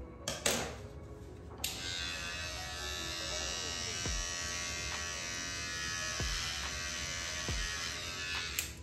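Electric hair trimmer buzzing steadily while edging the forehead hairline. It starts abruptly about a second and a half in, after a couple of light knocks, and stops near the end.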